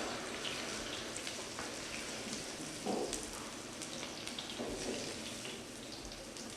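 Fish frying in hot oil: a steady sizzle dotted with small crackling pops, with a brief dull knock about three seconds in.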